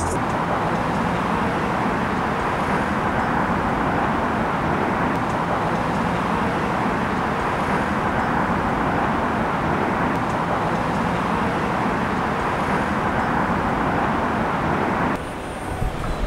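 Steady roar of city traffic noise, an even rushing sound with no distinct events. About a second before the end it cuts abruptly to a quieter street sound.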